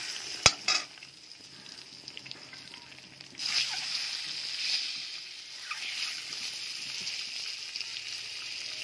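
Eggs frying in hot oil with turmeric in a pan, sizzling. A sharp click comes about half a second in, and the sizzling swells louder about three and a half seconds in.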